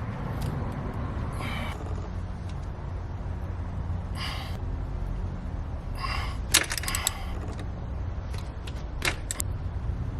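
Scattered metallic clicks, clinks and scrapes of hand tools working on the motorcycle's engine bolts, a cluster of them about six to seven seconds in, over a steady low hum.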